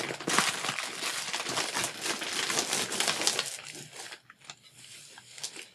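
Plastic packaging crinkling and rustling as it is handled, dense for the first three and a half seconds, then dropping to a few faint rustles.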